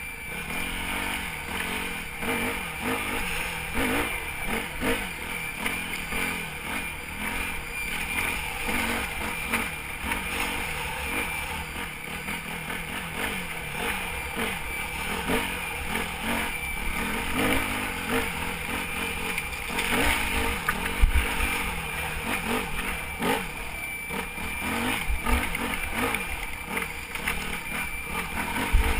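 Yamaha WR250F's single-cylinder four-stroke engine revving up and down as the bike is ridden off-road, with a few low thumps from the rough ground. A thin steady high whistle runs under the engine, the abnormal whistling noise whose cause the rider could not find.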